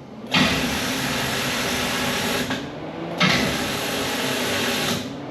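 1985 Chevy C10's 454 big-block V8 cranking on its starter in two attempts, each about two seconds long with a brief pause between. It is still cranking weakly: the starter's low-voltage problem has not been cured by the new alternator.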